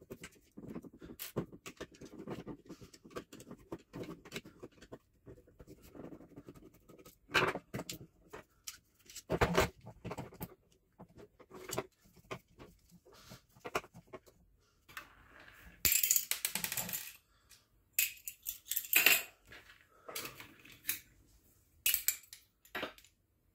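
Scattered clicks, knocks and clinks of plastic and metal airsoft electric gun parts being handled and set down on a wooden tabletop, with a brief scraping rustle about two-thirds of the way in.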